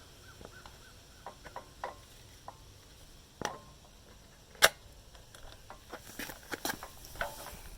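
Scattered clicks, taps and light knocks of parts and tools being handled while fitting a carburetor back onto a small pressure-washer engine, with one sharp, loud click about halfway through and a run of small rattling clicks near the end.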